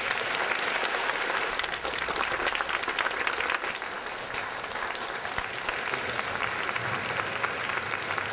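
A large audience clapping, sustained and steady throughout.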